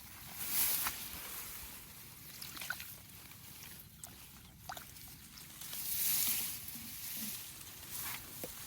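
Water sloshing and splashing, with two louder swells of hissy water noise, about half a second in and around six seconds, and a few small clicks and knocks.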